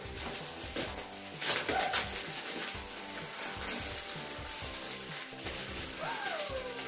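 Background music with a steady beat over the crinkling and tearing of foil gift-wrapping paper, with two louder crackles about one and a half and two seconds in.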